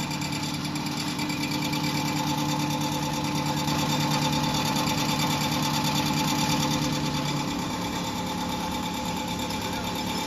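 Cat-ear cookie-forming machine running, its motors and rollers making a steady mechanical drone with a fast, even rhythm. A low hum drops away about seven and a half seconds in.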